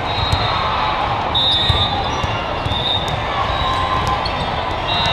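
Busy sports-hall din during volleyball play: balls bouncing and being struck across the courts, over a steady murmur of crowd voices.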